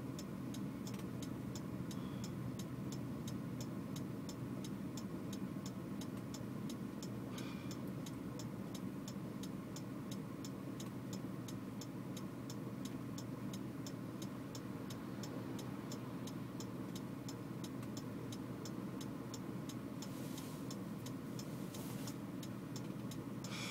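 A car's indicator flasher ticking steadily, about two ticks a second, over the low hum of the idling engine, heard inside the cabin.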